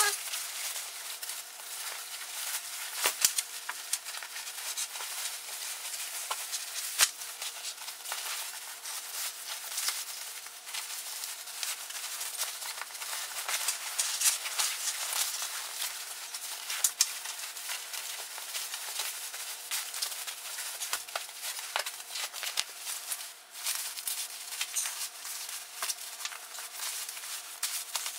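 The North Face Nuptse down puffer jacket's nylon shell rustling and crinkling as it is stuffed by hand into its own stow pocket: a continuous crackly rustle with a few sharper clicks.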